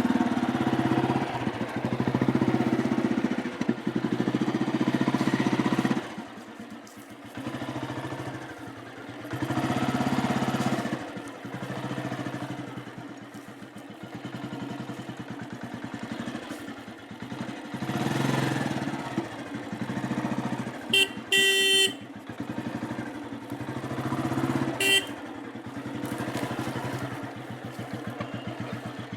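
Royal Enfield Bullet single-cylinder motorcycle engine running with an even, rapid beat, revved up several times and settling back toward idle between revs. A horn sounds about two-thirds of the way through, and again briefly a few seconds later.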